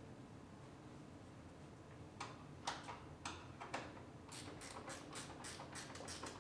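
Faint metallic clicks and taps from the door hinge bolts being fitted and run in on a car's front door hinge. A few separate clicks first, then a quick run of about four or five light clicks a second near the end.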